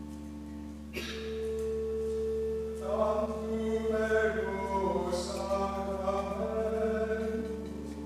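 Organ holding sustained chords, with a new held note coming in about a second in, and a sung hymn entering over it about three seconds in.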